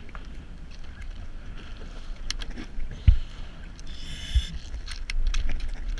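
Wind rumbling on the microphone aboard a boat at sea, with scattered clicks and knocks of diving gear being handled. A sharp thump about three seconds in, and a smaller one about a second later.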